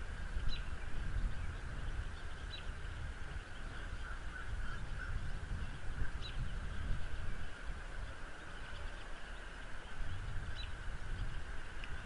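Wind rumbling on an outdoor nest-cam microphone in a snowstorm, with a steady hiss. A bird gives short high chirps every few seconds, about five in all.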